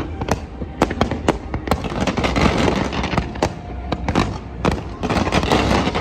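Fireworks display going off: a quick, irregular series of sharp bangs, about two a second, over a continuous crackle.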